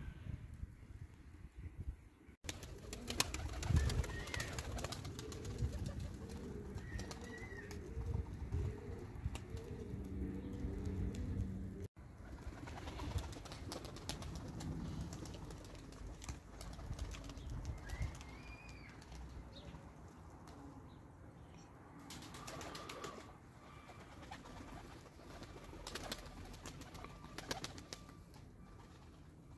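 Pigeons cooing in a low, repeated pattern, mostly in the first third, with a few short chirps from small birds over faint outdoor background noise.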